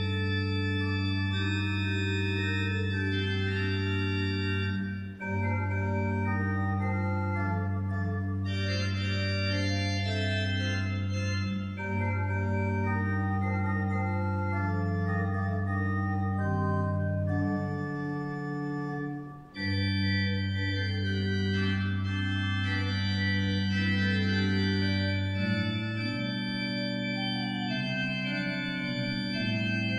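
Organ music: slow, sustained chords over a long-held low pedal note, with brief breaks between phrases.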